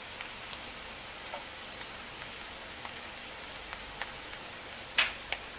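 Spiced potato filling frying in oil in a kadhai: a steady sizzling hiss with scattered small crackles. Two sharper clicks about five seconds in.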